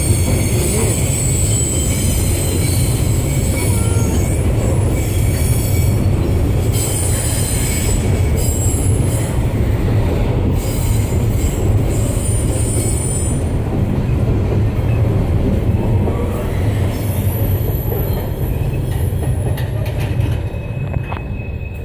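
Container wagons of a Pacific National narrow-gauge freight train rolling past: a steady low rumble with intermittent high-pitched wheel squeal. It grows quieter near the end as the last wagons go by.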